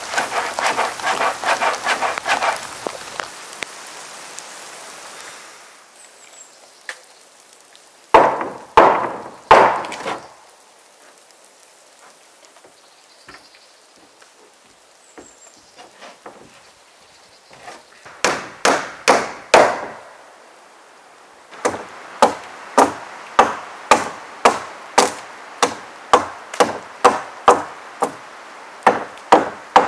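Rain pattering at first, then a hammer driving nails into the roof boards of a log cabin: two short runs of blows, then a steady series of about one and a half strikes a second.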